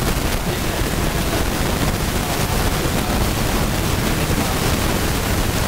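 Steady, loud hiss of background noise with no distinct event, like wind or surf on the recording.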